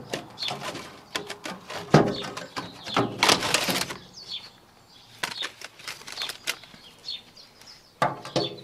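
Webbed plastic brush segments on a grass collector's brush driveshaft clicking and rattling as gloved hands work among them, with a burst of brushy rustling about three seconds in. After that the clicks come fewer and farther apart.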